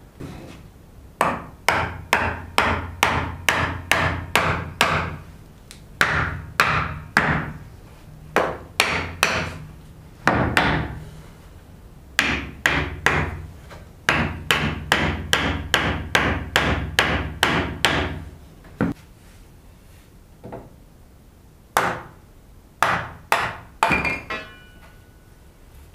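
Hammer striking wood in runs of steady blows, about three a second, with short pauses between the runs; a brief ringing clink near the end.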